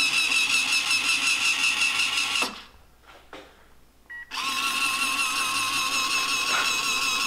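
Run-Chicken T50 automatic chicken door's gear-driven motor whining steadily as it raises the door, stopping about two and a half seconds in. After a click and a brief beep from the button, the motor starts again about four seconds in, driving the door back down.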